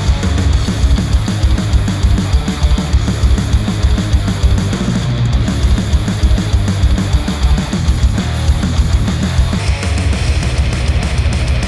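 Heavy rock or metal music with fast, dense drumming and distorted guitars, played through headphones and picked up by microphones at the earcups.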